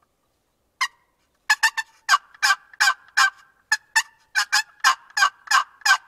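Turkey yelping: a single yelp about a second in, then a long, fast run of loud yelps at roughly three a second.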